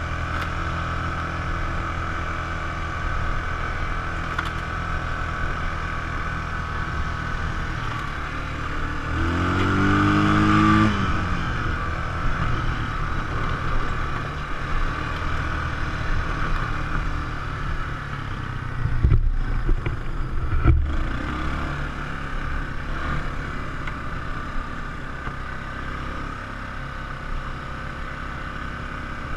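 ATV engine running steadily under way, with a rev that rises in pitch about ten seconds in. Two sharp thumps come a couple of seconds apart around twenty seconds in.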